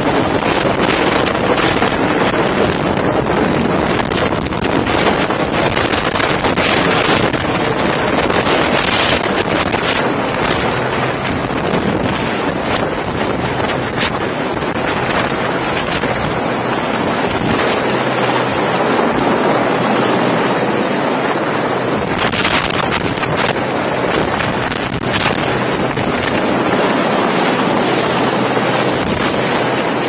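Wind buffeting a phone's microphone: a loud, steady rushing noise, with a few brief bumps.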